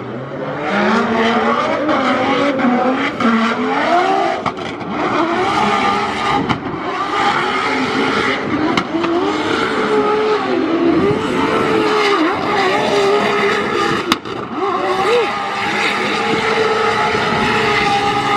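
Drift car engine at full throttle, its pitch rising and falling over and over as the driver works the revs through the slide, over the hiss and squeal of tyres spinning sideways on asphalt.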